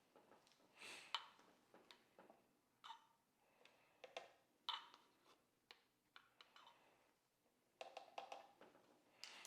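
Quiet, scattered light clicks and taps of a measuring spoon and ingredient containers being handled while baking powder is measured out, with a small cluster of taps near the end.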